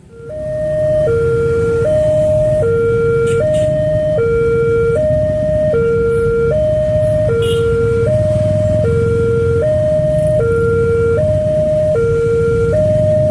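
Railway level-crossing siren sounding a two-tone hi-lo alternation, switching between a higher and a lower pitch about every three-quarters of a second. It switches on abruptly at the start, the warning that the crossing is closing for an approaching train.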